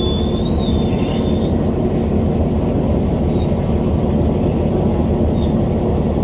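Heavy vehicle engine idling steadily, with a faint high whistle in the first second or so.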